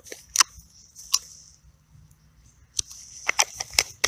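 Close handling of a small plastic bait container of maggots: sharp clicks and rustles of the container as fingers work at its top, two single clicks early and a quick run of them near the end.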